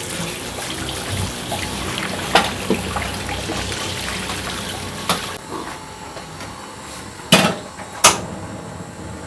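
Tap water running into a steel wok as it is rinsed at a stainless steel sink, with small clinks, stopping about five seconds in. Near the end come two sharp knocks a little under a second apart.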